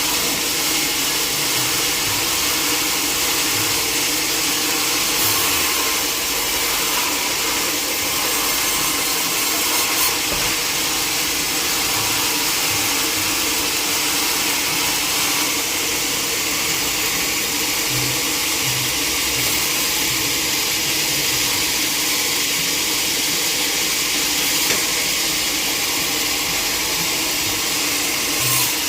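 Sawmill machinery running steadily: a loud, even hiss over a constant hum, with a couple of light knocks.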